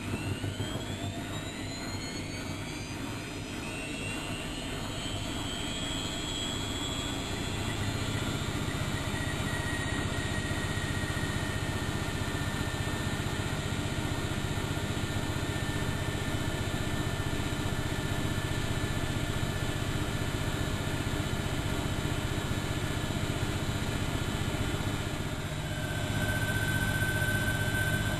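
Bauknecht WAK7760 washing machine spinning: the motor and drum whine climbs in pitch over the first few seconds as the drum speeds up, then settles into a steady high-speed spin hum. About 26 s in it steps up a little louder, with a new higher tone.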